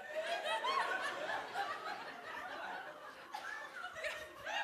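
Audience laughing in a hall: many overlapping chuckles and laughs that swell and ebb.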